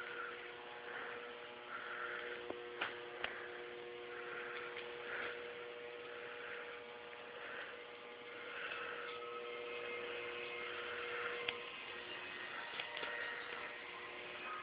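Steady electrical hum with a faint pulsing buzz above it, broken by a few sharp clicks.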